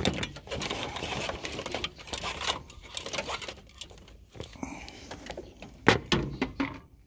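A rapid run of clicks and rattles, dense for the first four seconds and then sparser, with a louder short burst about six seconds in.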